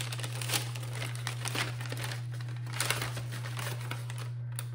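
Brown paper bag crinkling and rustling as it is unrolled and opened, in irregular scrunches, over a steady low hum.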